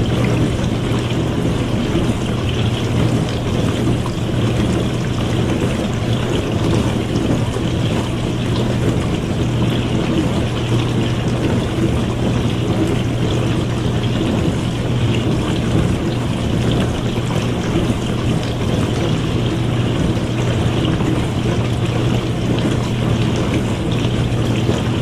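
Dishwasher running a wash cycle: water spraying and splashing steadily inside the tub over the constant low hum of its pump motor.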